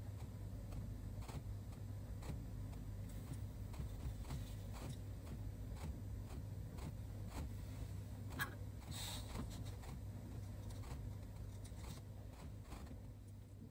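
Steady low room hum with faint, regular ticks a little under a second apart. About eight seconds in, a sharp click and a brief scrape as the lid is set back on the candle tin; the sound then fades out near the end.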